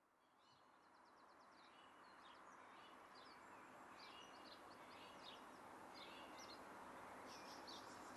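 Faint outdoor ambience fading in gradually from silence: a steady hiss with birds chirping and trilling in short repeated phrases.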